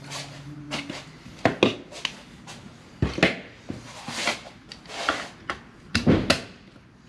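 Workshop handling noises: irregular knocks and clunks with short rubbing and scraping sounds between them, as a workpiece and tools are moved and set down.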